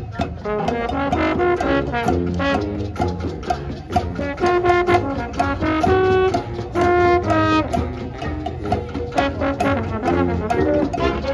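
Marching band playing: brass chords that change every second or so over regular drum and percussion strokes.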